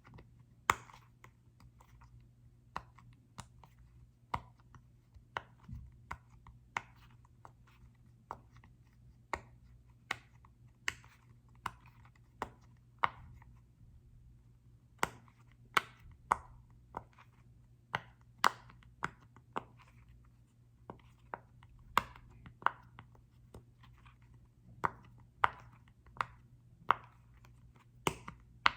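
Sharp, irregular taps and clicks on a small soccer-ball-shaped object, roughly one or two a second, some much louder than others.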